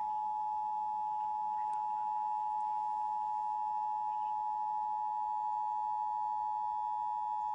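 Emergency Alert System attention signal, relayed over AM radio: two steady tones near 1 kHz (853 and 960 Hz) sounding together without a break. It marks the start of an EAS alert, here a Required Monthly Test.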